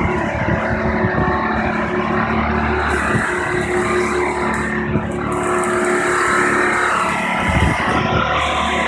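Marina travel lift's engine running steadily, with a brief low bump about seven and a half seconds in.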